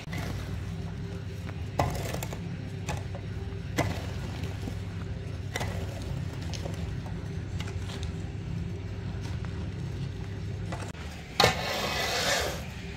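Wet concrete being pushed and levelled with a long-handled squeegee over steel-reinforced forms, with occasional short knocks of the tool, over a steady low hum. Near the end a sharp knock is followed by about a second of scraping.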